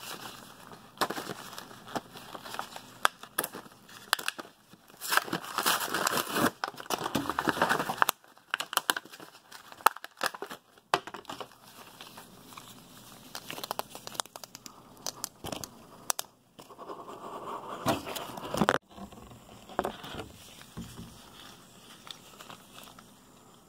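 A plastic-and-card blister pack of J-B Weld epoxy being worked open by gloved hands: irregular crinkling, crackling and tearing of the packaging with scattered clicks. It comes in fits and starts, busiest about five to eight seconds in and again shortly before the end.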